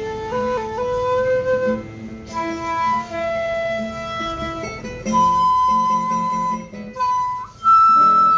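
A 1.6-shaku shakuhachi plays a slow melody of long held notes, stepping between pitches, over acoustic guitar accompaniment. It climbs to a loud, high held note near the end.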